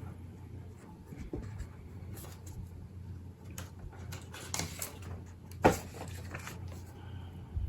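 Light handling noises of paper and ink-craft supplies: scattered soft taps and clicks, one sharper click a little past the middle, over a steady low hum.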